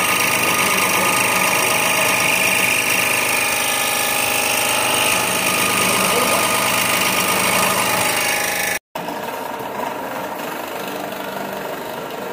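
Scroll saw running, its blade cutting a curve through a wooden board. About nine seconds in the sound cuts off abruptly, and a quieter, steady machine hum follows.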